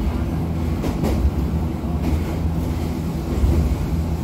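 Choshi Electric Railway train running along the track, heard from inside the car: a steady low rumble, with one sharp click about a second in.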